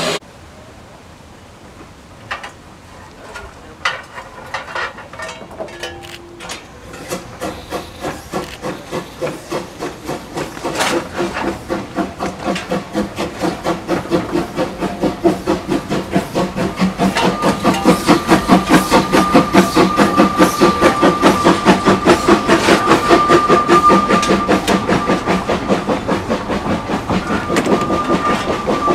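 Narrow-gauge steam locomotive working close by: a regular beat of exhaust chuffs that grows louder and quicker, with steam hissing from the cylinder drain cocks. A steady high whistle-like tone joins about halfway through.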